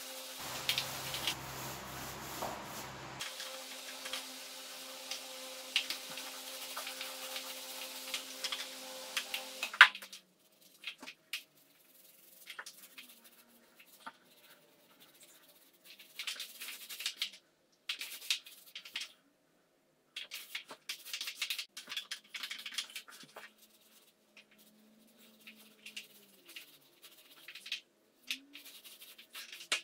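Small paint roller rolled over a wall in short strokes of water-based emulsion paint, giving a sticky crackling rub that comes and goes with pauses between strokes. For the first ten seconds a steady hiss and hum lies under it, then stops abruptly after a sharp click.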